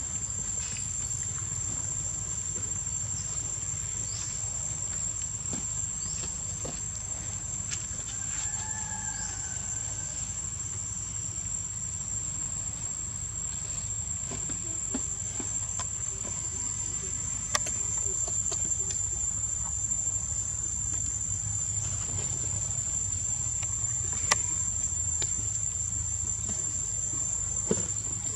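Steady high-pitched drone of insects, one unbroken thin tone, with a brief faint call just after 8 seconds and a few light clicks.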